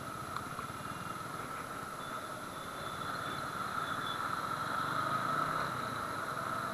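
Apache RTR 200 4V motorcycle's single-cylinder engine running at low speed, heard from a handlebar-mounted camera, with the noise of surrounding traffic. It gets a little louder about three seconds in.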